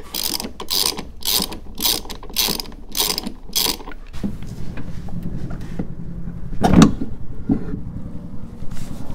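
Hand socket ratchet clicking in repeated strokes, about two a second, as it backs off the 19 mm nuts holding a Ford Bronco's spare tire. The clicking stops about four seconds in, and a heavy thump comes near the seventh second as the 37-inch spare tire is lifted off its carrier.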